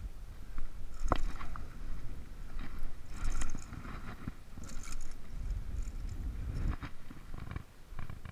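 A hooked largemouth bass splashing at the surface as it is reeled to the bank, with splashes around three and five seconds in. Under it runs a low wind rumble on the microphone, with a sharp handling knock about a second in.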